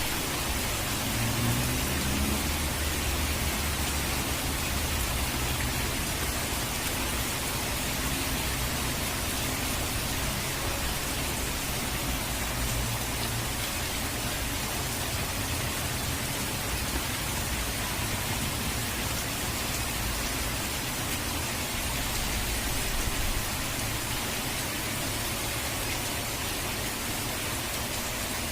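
Dense, steady hiss of heavily falling water, with a deeper rumble underneath that swells near the start and again about two-thirds of the way through.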